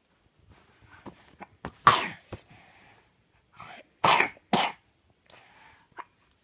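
A young child coughing: one cough about two seconds in, then two coughs in quick succession about four seconds in, with faint breaths between them.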